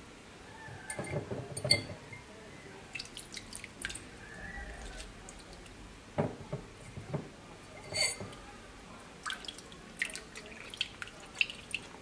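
Brine dripping and splashing as pickled tsitsak peppers are lifted out of a tub of brine and packed into a glass jar, in scattered short splashes and small knocks.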